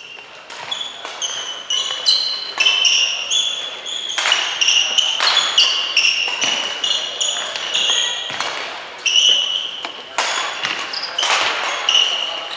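Badminton rally: rackets striking the shuttlecock back and forth in repeated sharp hits, among frequent high squeaks of players' shoes on the court floor.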